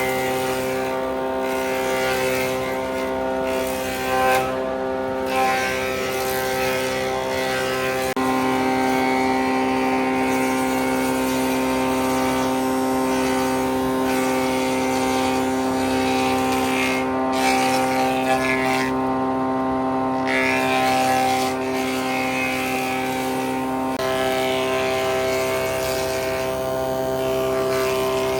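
A woodworking machine's motor running steadily, a humming drone whose tone changes about eight seconds in and again about two-thirds of the way through.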